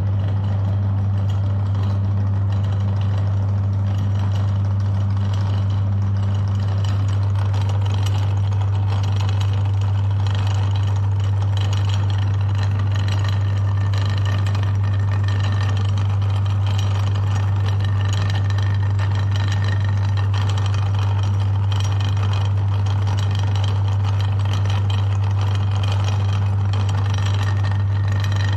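Electric meat grinder motor running steadily with a strong low hum.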